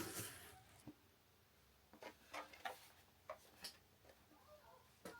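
Faint, irregular light clicks and taps of small hard parts being handled, a few at a time, with near silence between.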